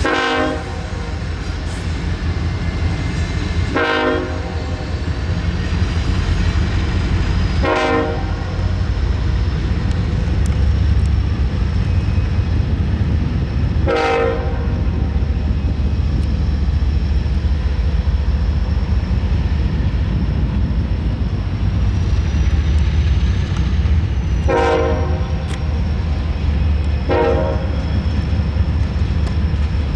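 Locomotive horn sounding six short blasts of about a second each at irregular gaps, over the steady low rumble of a train.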